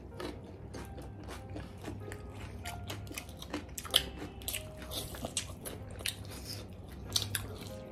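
Two people biting into and chewing chicken leg pieces close to the microphone: a run of crunches and wet mouth clicks, the sharpest crunch about four seconds in.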